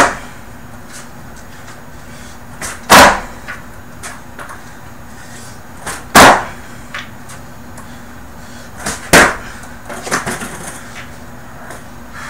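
Skateboard tricks on carpet: four loud smacks of the board coming down, about three seconds apart, each just after a lighter knock, then a few lighter clatters about ten seconds in.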